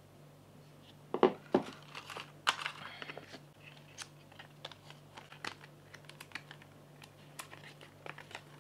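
Paper wrap around a MacBook Pro's MagSafe charging cable being handled and pulled off: crinkling and rustling, with a few sharper knocks about a second in. A faint steady low hum runs underneath.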